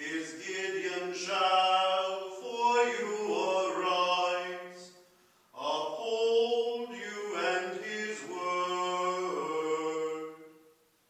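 Solo unaccompanied man's voice singing slow, held phrases of a hymn or liturgical chant, in three phrases with short pauses for breath: one about two seconds in and a longer one near the middle.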